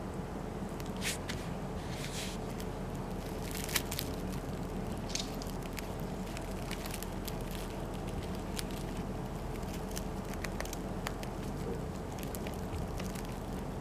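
Dry woven hay toy being handled: scattered crackles and short rustles of the dry grass, the clearest in the first five seconds, over a steady low room hum.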